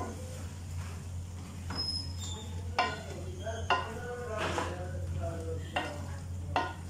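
Wooden spoon stirring cubed potatoes and aubergine in an aluminium pot, knocking against the pot about five times with a short ringing clank, over a faint sizzle and a steady low hum.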